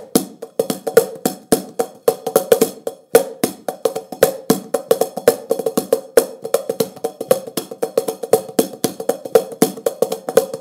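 Meinl mini cajon, a small birch-fronted box drum with snare wires inside, played with the fingers and palms in a fast, steady groove of hand strikes with accented hits.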